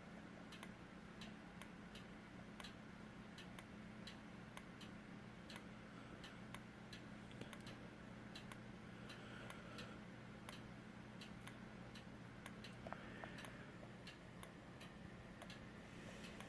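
Faint, even ticking, about two ticks a second, from a Siemens UMMT horn strobe flashing with only its strobe powered, over a low steady hum.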